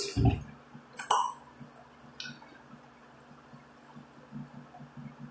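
A plastic drink bottle set down on the table with a knock and a short thump, followed by two light clinks of a metal spoon and fork against the dishes, over a faint low hum.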